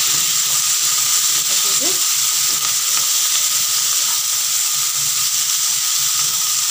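Cubed potatoes and freshly added chopped fenugreek leaves sizzling in hot mustard oil in a kadhai while being stirred with a wooden spatula: a steady frying hiss throughout.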